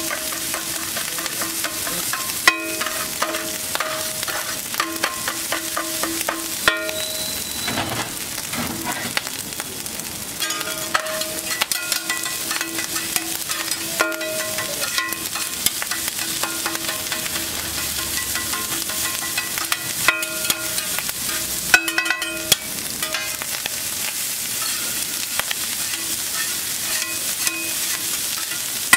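Egg and masala frying on a large flat griddle: a steady sizzle with frequent sharp metallic clanks and scrapes of metal spatulas chopping the egg and mixing it into rice.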